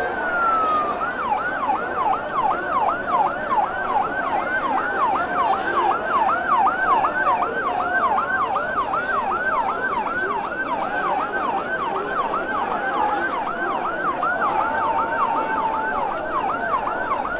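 Fire engine siren: a long wail that drops away right at the start, then switches to a fast yelp, the pitch sweeping up and down about two and a half times a second.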